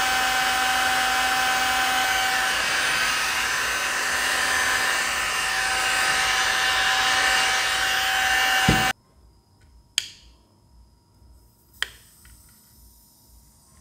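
Small rechargeable handheld fan running: a steady rush of air with a high motor whine. It cuts off suddenly about nine seconds in, and two sharp clicks follow, about two seconds apart.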